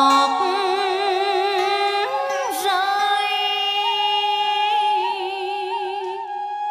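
Woman's voice chanting a Vietnamese poem in the ngâm thơ style, drawing out long notes with a wavering vibrato and a sliding pitch bend about two and a half seconds in.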